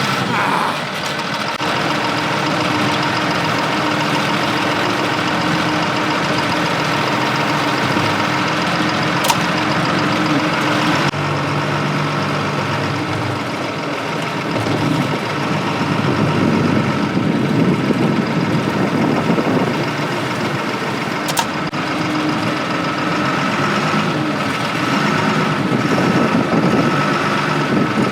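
Caterpillar 938F wheel loader's diesel engine running under work. The engine note changes pitch about a third of the way in, then revs up and works harder for several seconds around the middle and again near the end.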